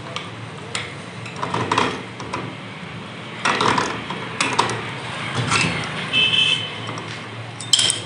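Steel hand tools clanking and clicking against a Honda Activa's centrifugal clutch assembly clamped in a bench vise as a wrench tightens the clutch nut: irregular metal-on-metal knocks and scrapes, with a brief high-pitched ring about six seconds in.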